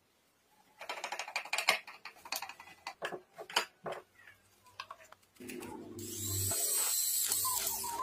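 Rapid clicks, ticks and knocks of wooden parts and screws being handled and driven by hand. From about five and a half seconds, a steady rushing noise with a low hum takes over.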